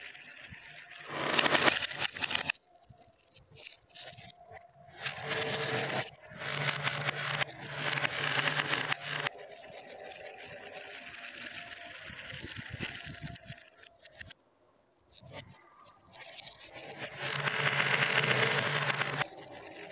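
Glass marbles rolling and rattling through a plastic block marble run, in bursts of a second or few with quieter stretches between.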